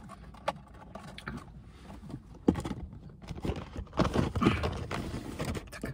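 Handling noise from a cardboard burger box and the phone propped against it: scattered light taps and a sharp knock about two and a half seconds in, then a stretch of rustling and scraping close to the microphone.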